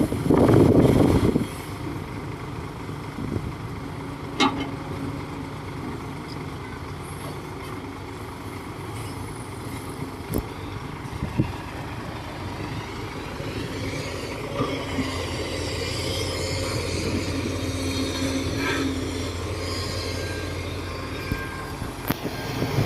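Bulldozer's diesel engine running steadily. It is louder for the first second or so, and a few short knocks come through along the way.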